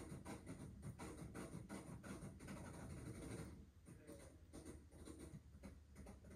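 Faint, rapid scratching and rubbing, dense at first and thinning out about three and a half seconds in, over a low steady hum.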